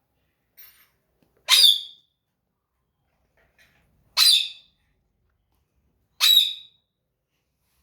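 Pet parrot squawking: three loud, harsh squawks about two seconds apart, with a couple of faint softer calls between them.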